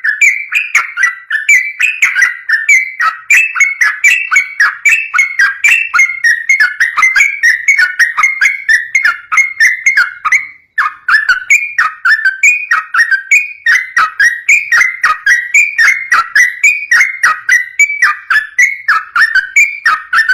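Yellow-vented bulbul (trucukan) singing its loud, fast, unbroken run of bubbly whistled phrases (the 'ropel' style), several notes a second, with one brief pause about ten seconds in.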